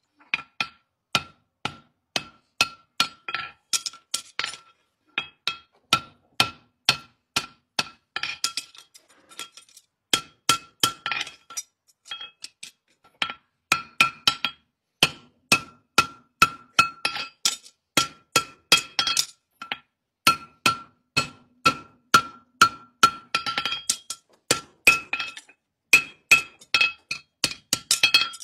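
Ball-peen hammer striking a red-hot horseshoe on a steel anvil, about two blows a second with a few short breaks. Each blow rings with a bright metallic clink from the anvil.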